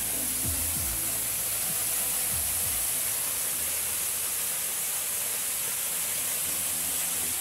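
Waterfall: a thin stream of water dropping down a rock face onto rocks and into a pool, a steady, even rush of noise.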